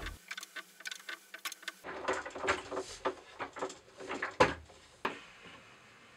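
Irregular taps, knocks and scrapes of a benchtop drill press being handled and shifted on the wooden top of a scissor lifting table, with a louder thump about four seconds in and a sharp click a second later.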